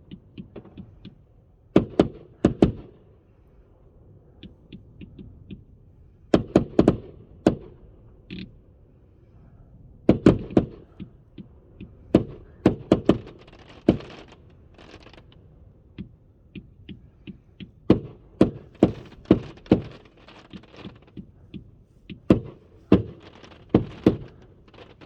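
Röder 'Jubelbox' compound firework cake firing: sharp shots in quick groups of two to four, every few seconds, with fainter crackling between the groups.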